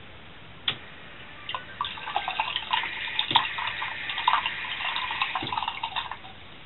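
A click, then an automatic sensor faucet running into a bathroom basin, the stream splashing irregularly as a cat's paw flicks through it. The water starts about a second and a half in and shuts off about six seconds in.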